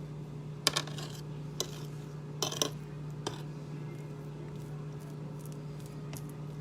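A few light clinks and taps of a utensil against a baking tray while dough is pressed into it, mostly in the first half, over a steady low hum.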